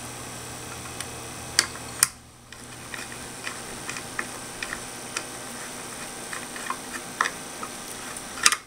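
Small metallic clicks and taps from a screwdriver and a retaining clip being worked into place inside a grid-tie inverter's aluminium case: sharper clicks about one and a half and two seconds in and again near the end, with lighter irregular ticks between.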